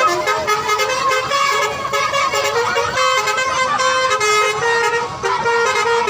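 A bus's basuri telolet horn playing a melody of short held notes that step up and down in pitch every half second or so.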